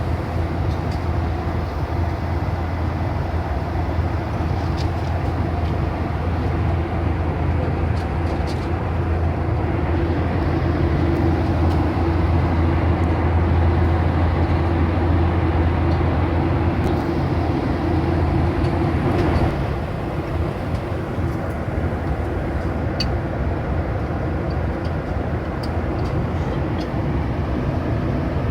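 Steady cabin noise inside a Boeing 737-800: a continuous drone of engines and airflow with a deep low hum. It eases a little about twenty seconds in.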